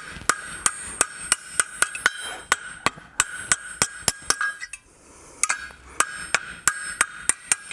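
Rapid, even blacksmith's hammer blows on hot steel flat stock against the anvil, about three a second, each with a ringing note from the anvil. The work is light finishing: dressing the fork's shoulder and taking off sharp edges. The blows stop briefly a little before the middle, then resume at the same pace.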